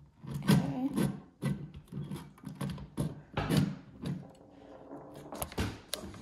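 Irregular clicks, knocks and rattles of the Nakamichi 600 cassette deck's metal transport mechanism being handled and worked loose from the chassis.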